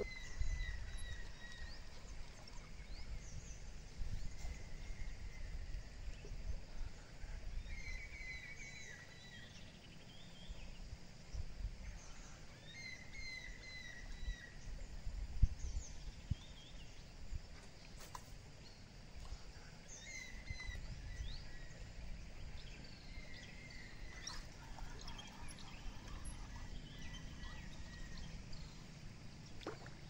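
Wild birds calling: short chirping phrases of a few quick notes, repeated every few seconds over a low background rumble. A single dull thump sounds about halfway through.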